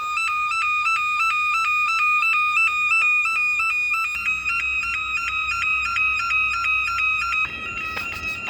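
Factory fire alarm siren sounding during a test: a loud electronic tone rapidly alternating between two pitches. Its pattern changes about halfway through.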